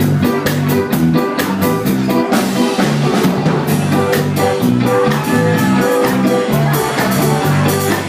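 Live ska band playing: a drum kit keeps a steady beat of about four strokes a second under guitar, bass and a horn section of trombone, tenor saxophone and trumpet.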